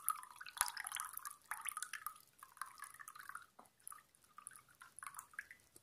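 Filtered water dripping from a bottle-top water filter into a glass of water, in quick, irregular drops.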